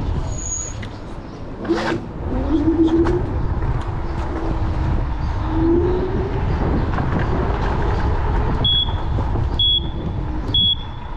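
Segway GT2 electric scooter on the move: a steady low wind rumble on the microphone with a faint motor whine that rises and falls in pitch. Near the end come three short high beeps about a second apart.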